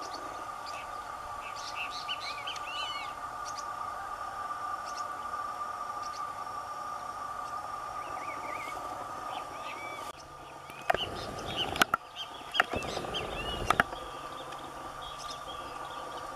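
Blue-winged parrotlets giving short, high chirping calls again and again over a steady background hum. About eleven seconds in, several sharp loud clicks break in among the chirps.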